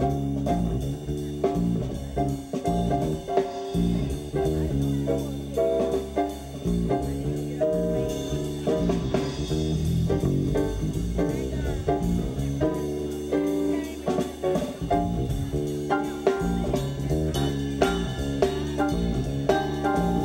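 Live blues band playing a B-flat blues: guitar, keyboard and drum kit at a steady groove.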